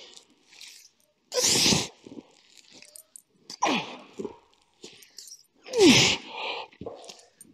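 A man's strained breathing and grunts while he rows heavy dumbbells chest-down on an incline bench: a hard, hissing exhale about a second and a half in, then groans falling in pitch at about three and a half and six seconds. The load, 45 kg per hand, is so heavy that he struggles to get the weights up.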